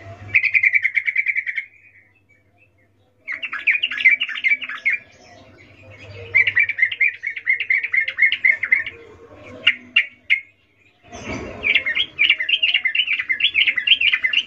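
Female yellow-vented bulbul's rapid chattering call: four bouts of quick, sharp notes at about ten a second, with short pauses between them and a few single notes in one pause.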